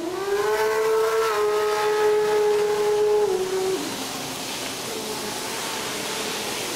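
A motor whining: its pitch climbs over the first second, holds steady for about three seconds, then drops and runs on lower and quieter.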